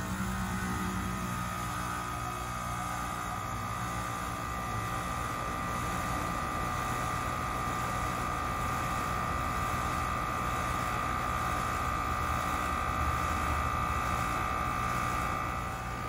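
Carrier Sentry 15 two-ton heat pump outdoor unit running in heat mode just after starting up: compressor and condenser fan running steadily, with a steady high-pitched tone over a low hum.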